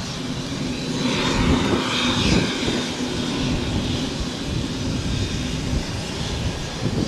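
Air Tractor AT-802F Fire Boss's PT6A turboprop engine running as the plane taxis: a steady propeller drone with a faint high turbine whine, swelling a little about a second in.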